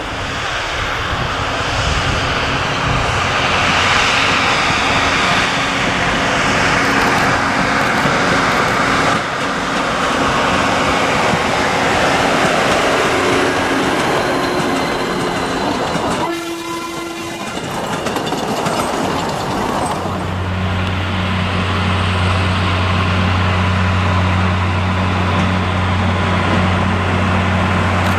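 Narrow-gauge train of open wooden passenger cars rolling past with steady wheel-on-rail noise. A brief single-pitched tone sounds around the middle. In the last third comes the steady low hum of an Mk48 diesel locomotive's engine.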